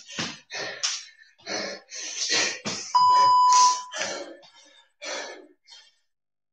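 Hard, rapid breathing of a man in the middle of a cardio exercise. About three seconds in, an electronic interval timer gives one steady beep lasting about a second, marking the end of a work interval.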